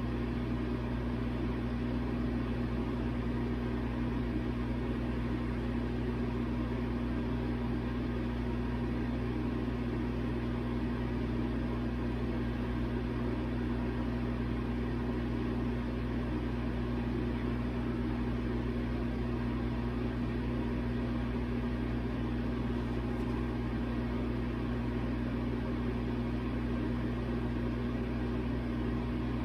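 Steady, unchanging machine hum with a constant low tone.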